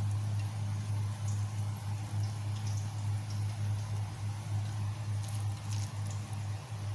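A steady low hum throughout, with faint light clicks and scrapes of a spoon mixing a thick yogurt mixture in a glass bowl, a few more of them about five seconds in.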